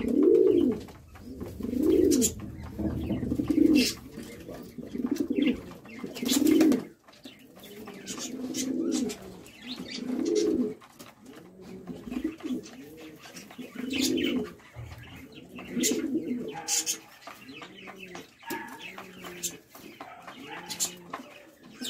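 Pigeons cooing, one arching coo phrase about every two seconds, overlapping now and then, with occasional sharp clicks between them.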